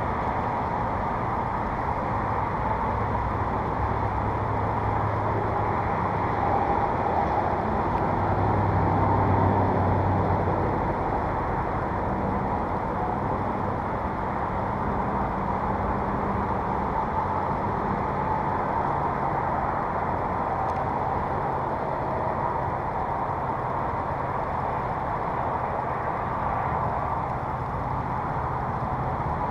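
Steady hum of motor-vehicle engine and road noise, with low engine tones that drift slightly in pitch.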